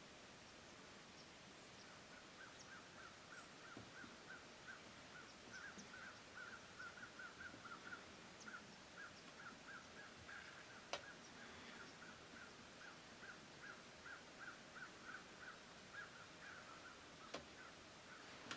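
Faint outdoor quiet with a distant animal calling in a long, steady run of short repeated notes, about three a second. Two sharp clicks come, one about halfway through and one near the end.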